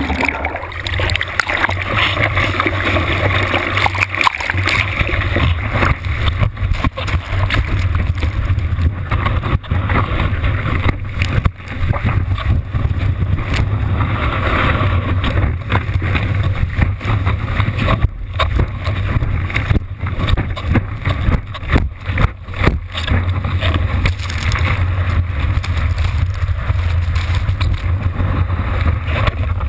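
Surfboard riding through a breaking wave: a steady loud rush of whitewater with a heavy low rumble, water and spray hitting a camera mounted on the board's nose. A run of sharp knocks and splashes comes past the middle.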